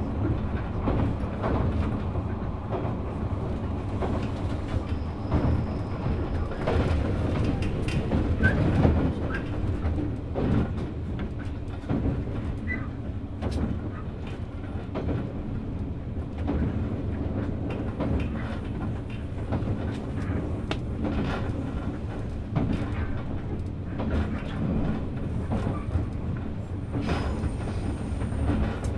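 JNR 183 series limited-express electric motor car (MoHa 182) running, heard from inside the car: a steady low rumble and hum from the running gear and MT54 traction motors, with wheels clicking over rail joints.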